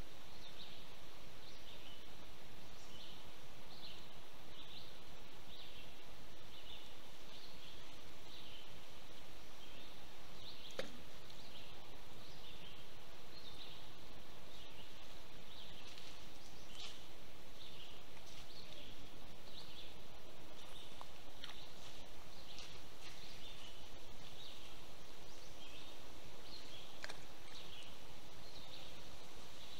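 Woodland creek ambience: a steady hiss with short high animal chirps repeating about once or twice a second, and a sharp click about eleven seconds in and again near the end.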